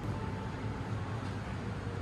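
Steady low hum and hiss of indoor background noise, with no distinct event standing out.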